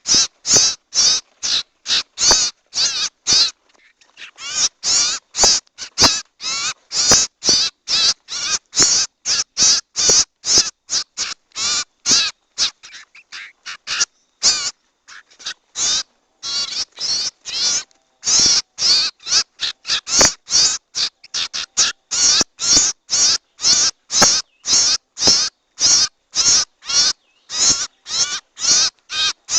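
Bird-trapping lure recording of harsh, raspy bird calls repeated about twice a second, the sound used to draw in cipow and sirtu birds. There are short breaks a few seconds in and again about halfway through.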